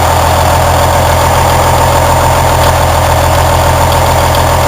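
Cummins N14 Celect Plus inline-six diesel engine idling steadily while warming up, its newly replaced thermostat not yet open.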